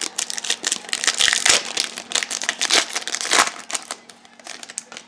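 Trading cards and their packaging being handled: irregular crinkling and clicking, busiest in the middle and thinning out near the end.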